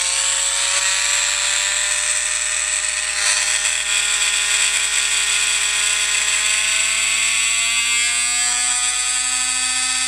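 Small 12-volt DC motor, run from a treadmill's motor controller, whining at high speed. Its pitch creeps steadily upward as the speed is turned up on the variable-speed control.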